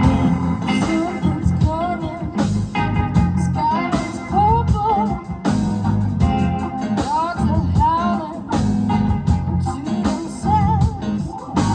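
Live rock band with electric guitars, keyboards, bass and drums playing a mid-tempo song, with a lead melody line that slides up and down in pitch over a steady bass and drum groove.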